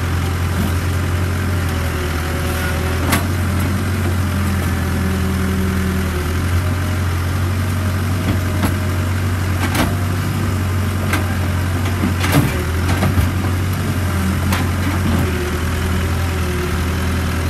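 Caterpillar E120B excavator's diesel engine running steadily as its bucket unloads soil into a dump truck, with a few sharp knocks of dirt and bucket against the truck's steel bed.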